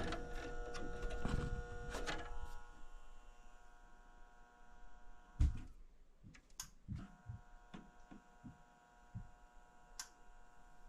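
Steady electrical hum from the furnace's control transformer with the door switch button held in, breaking off for about a second near the middle, with a few knocks and clicks of handling. The control board has no power, a sign of a blown fuse in the furnace's low-voltage circuit.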